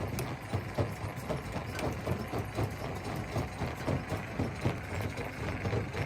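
Rock crusher running: a steady low engine drone under rapid, irregular clattering knocks, several a second.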